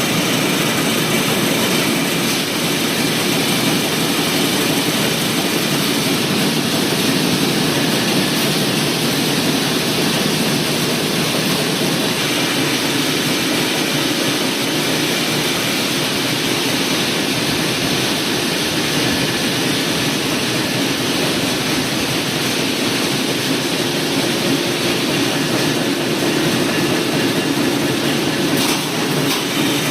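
Wire-processing machinery running steadily: an even, loud mix of hiss and hum with no clear rhythm, with a few faint clicks near the end.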